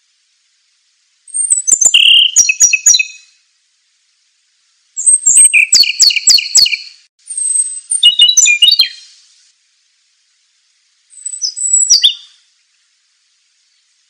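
Songbird singing in four short phrases of high whistles and rapid trills mixed with sharp clicks, each phrase one to two seconds long, with pauses between them.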